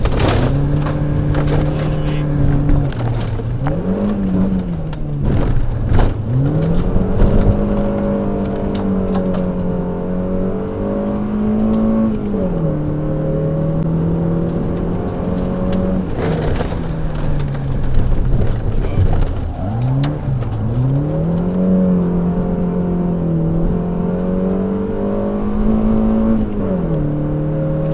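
Volvo rally car's engine heard from inside the cabin, driven hard on a gravel stage: the pitch climbs and falls repeatedly as it accelerates, shifts and lifts for corners, with several sharp drops and long steady stretches at high revs.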